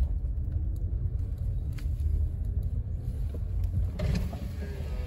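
Car engine running at low speed, heard from inside the cabin as a steady low rumble while the car creeps forward.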